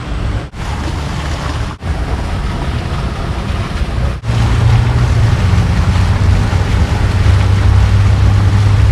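Water running through a miniature golf course's artificial stream, a steady rushing hiss. It breaks off briefly three times, and a steady low rumble comes in after about four seconds.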